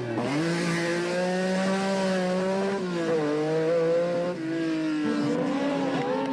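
Rally car engine running hard at high revs. Its pitch climbs at the start, drops twice, about three and four and a half seconds in, and climbs again near the end.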